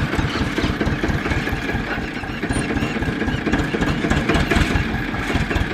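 Tractor diesel engine idling with a steady, rapid low chug.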